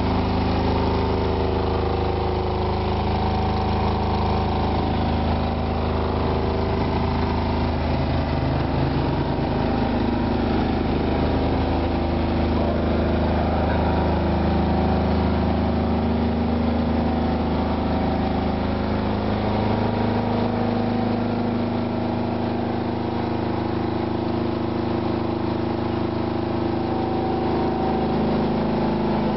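A 5 kVA diesel generator set in a soundproofed canopy, running steadily.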